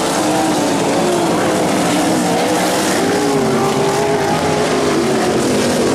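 Several race car engines running at once, their pitches wavering up and down over each other.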